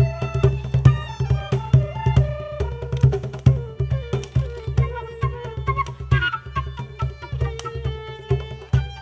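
Music: fast, regular drum strokes over a steady low tone, with a melodic instrument playing a sliding tune above.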